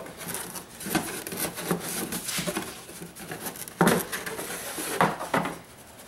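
Ford F150 EcoBoost engine cover being pulled up and popped off its mounts: a string of hard knocks and pops with rustling and rubbing, the loudest about four seconds in.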